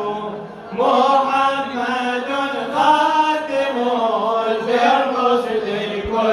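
Men chanting a mawlid in praise of the Prophet Muhammad, voices held on long drawn-out notes, unaccompanied. The chant breaks off briefly under a second in, then resumes.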